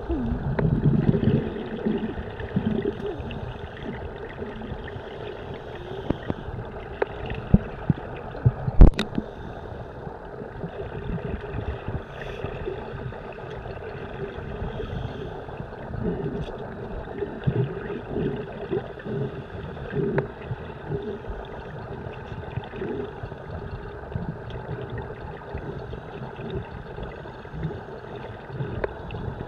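Muffled underwater noise from scuba divers breathing through regulators: irregular gurgling bursts of exhaled bubbles over a steady rumble. One sharp knock about nine seconds in.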